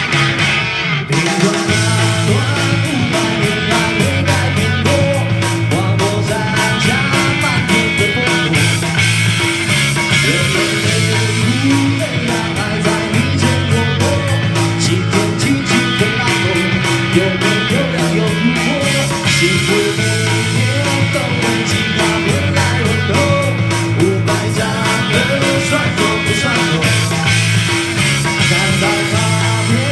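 A man singing a pop-rock song live into a handheld microphone over a loud backing track with a steady beat.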